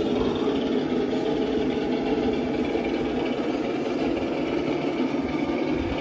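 Electric motor and geared drivetrain of a Traxxas TRX-6 6x6 RC crawler whirring steadily as it crawls slowly over rock and onto a wooden plank bridge.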